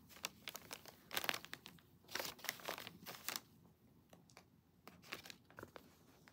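Brown paper bag crinkling and rustling under a cat as it shifts and paws on it, in three bursts with short pauses between.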